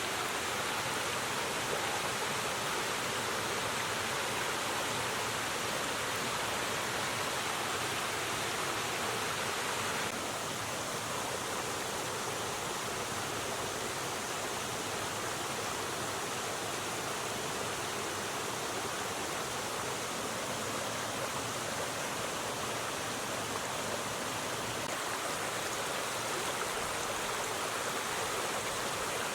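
River water rushing steadily over stones, a constant even wash of noise that drops slightly in level about a third of the way in.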